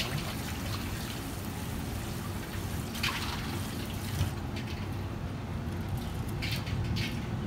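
Tap water running from a pull-down kitchen faucet sprayer over sea bream held in the hands above a steel bowl, rinsing away scraped-off scales, with the splashing louder about three seconds in and again near the end.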